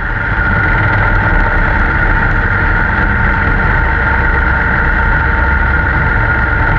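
Snowmobile engine running steadily, heard from on board the machine: a continuous whine over a low rumble, with no change in speed.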